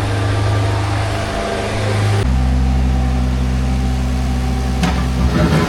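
An engine running steadily with a low hum; about two seconds in the hum changes abruptly to a lower, deeper tone.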